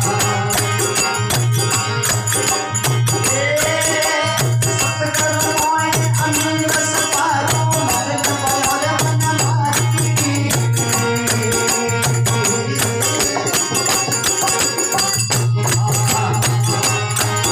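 A devotional chetawani bhajan performed live: a harmonium playing a melody over a steady, fast rhythm of hand percussion, with a male voice singing from about three seconds in until near the end.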